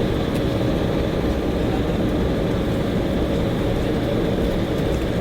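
Steady cabin noise of an Embraer E190 taxiing after landing, heard from inside the cabin: an even rumble and hiss from its two GE CF34-10E turbofans at low thrust, with a faint steady hum.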